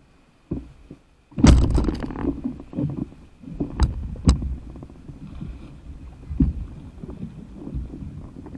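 A loud splash about a second and a half in as a person tumbles off a paddle board into the sea, then water sloshing and lapping against the board, with two sharp knocks, as he climbs back on.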